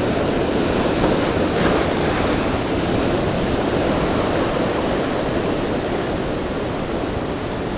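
Rough surf washing and breaking over a rocky shoreline, a steady rushing.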